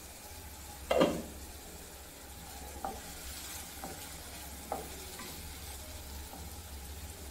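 Diced potatoes frying in oil in a kadai, sizzling steadily while a wooden spatula stirs them. A sharp knock of the spatula against the pan comes about a second in, followed by a few lighter taps.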